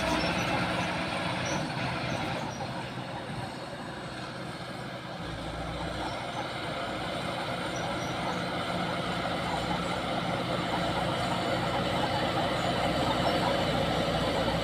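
Old bulldozer's engine running steadily, easing off a few seconds in and then building again.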